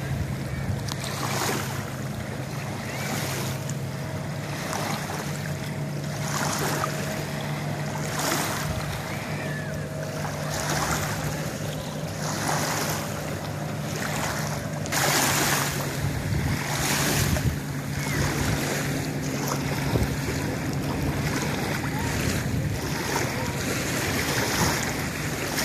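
Small lake waves lapping at the water's edge, swelling and fading every second or so, with wind on the microphone. A steady low hum runs underneath.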